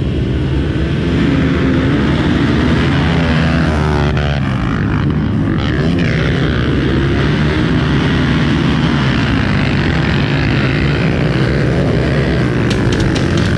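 A pack of motocross dirt bikes at full throttle, many engines blending into one loud, steady buzz, with some revving rising and falling a few seconds in.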